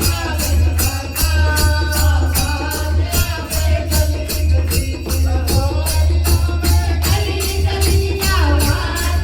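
Devotional kirtan music for a jagrata: a voice singing a bhajan over jingling percussion that keeps a steady beat of about four strokes a second, with a heavy steady bass underneath.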